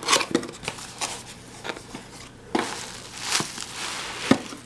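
Cardboard box flap being pried open and bubble wrap inside being handled: scattered clicks, scrapes and rustling, with a longer crinkle about three seconds in and a sharp tap near the end.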